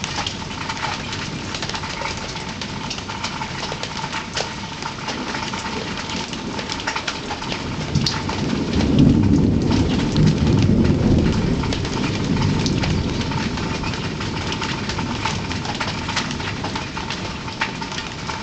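Steady rain falling with fine dripping ticks, and a low roll of thunder that builds about eight seconds in, rumbles for a few seconds and fades.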